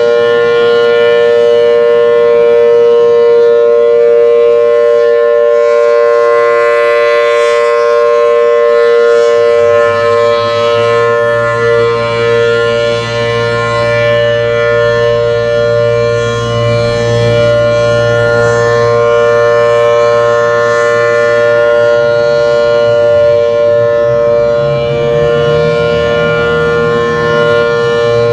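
Federal Signal Thunderbolt 1000T outdoor warning siren sounding its monthly test with a steady, held tone that stays at one pitch. A low hum joins underneath about ten seconds in.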